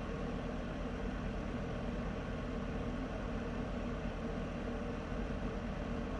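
Heater running steadily: a continuous low hum with an even hiss on top, unchanging throughout.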